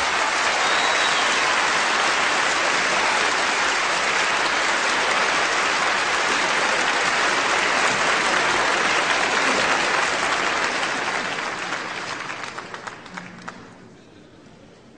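Large concert audience applauding steadily, the clapping dying away over the last few seconds into scattered single claps.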